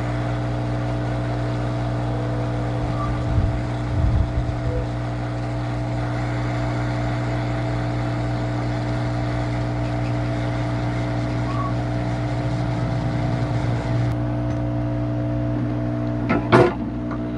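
Hot air rework station blowing steadily, an even hum with a hiss, as its nozzle heats a chip on a laptop motherboard. A few low bumps about four seconds in and a sharp knock near the end.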